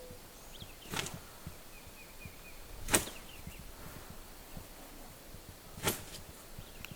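Three sharp knocks about two to three seconds apart, the middle one loudest, with faint bird chirps between them.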